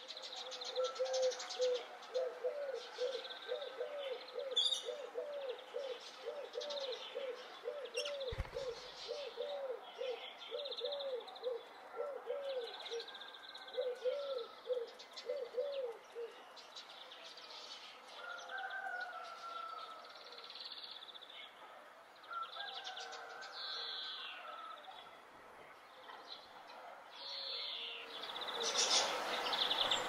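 Mixed birdsong: many short high chirps and whistles, with a lower call repeated about twice a second through the first half. A louder hiss builds near the end.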